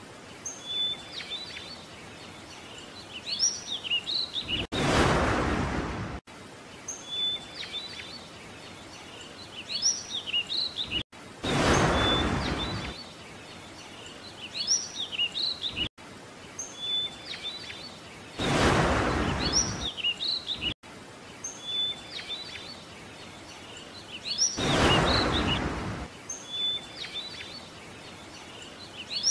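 Birds chirping over a steady background hiss. The same short stretch of birdsong repeats about every six and a half seconds, and a rush of noise lasting a second or two swells up four times.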